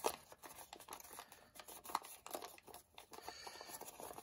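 Faint, irregular crinkling and rustling of a sheet of origami paper as fingers work pleats around a triangle twist and press them flat.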